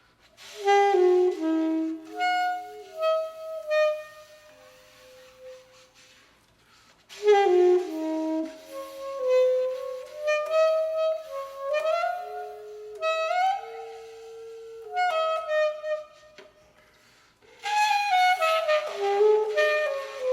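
Solo saxophone playing a slow, meditative melody in three phrases, each note fading away in reverb during the pauses between them.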